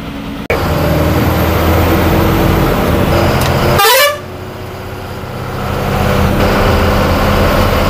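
A bus runs and pulls away with horn honking, heard from inside the non-AC bus. A quick rising sweep comes about four seconds in, after which the noise drops and slowly builds back up.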